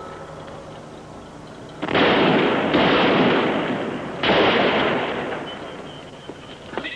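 Three loud gunshots, about two seconds in, a second later and at about four seconds, each followed by a long echoing fade, heard through old film sound.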